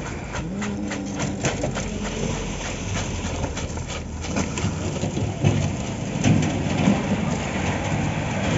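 Construction site noise during a concrete slab pour: a machine engine running steadily under scattered clattering and scraping knocks.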